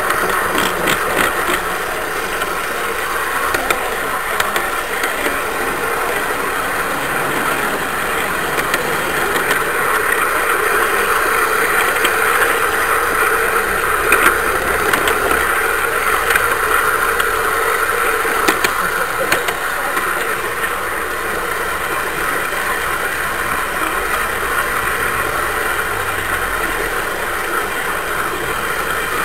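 Garden-scale model train running steadily along its track, a continuous mechanical running noise with occasional sharp clicks.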